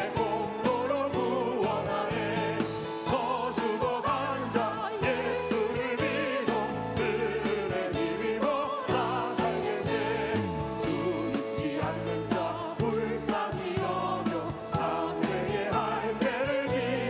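Choir singing gospel-style Christian music with instrumental accompaniment and a steady beat.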